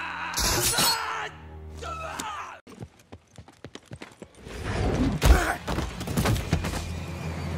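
Action-film soundtrack: a loud sharp blast about half a second in, a quick run of clicks in the middle, then heavy thuds and crashes over music.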